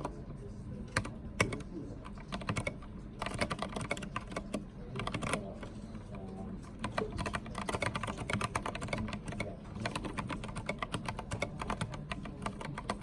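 Typing on a Filco Minila mechanical keyboard with Cherry MX Brown switches and thick double-shot ABS keycaps: a run of keystroke clacks, scattered at first, then fast and continuous from about three seconds in.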